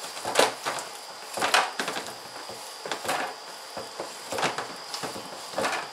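Ground sausage meat and ham pieces being mixed by a gloved hand in a stainless steel bowl, in irregular strokes about once a second.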